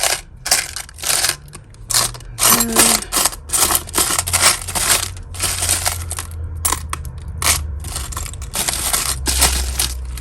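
Hands rummaging through a pile of metal costume jewellery, with many irregular clinks and jangles of small pieces knocking together.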